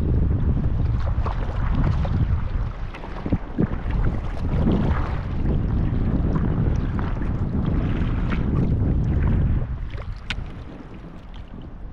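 Water splashing and lapping around a folding sea kayak under paddle, with wind rumbling on the microphone. The wind noise eases off near the end.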